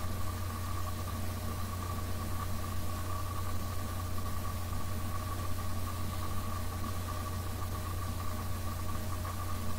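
Electric sander running steadily against wood boards: a constant motor hum with a steady higher whine above it.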